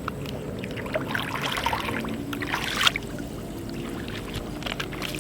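Water splashing and trickling, with a louder splash about three seconds in, over a steady low hum.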